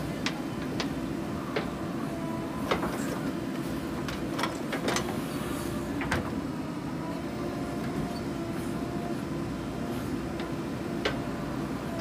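JCB 3DX backhoe loader's diesel engine running steadily under load as the rear bucket digs soil and lifts it, with a scattering of short sharp knocks and clanks.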